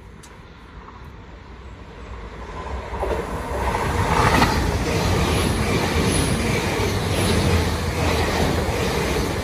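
Two coupled GWR Class 802 bi-mode express units passing through a station without stopping, running on diesel. Rail noise builds over the first three or four seconds as the train approaches, then a steady loud rush of wheels and running gear as the carriages go by.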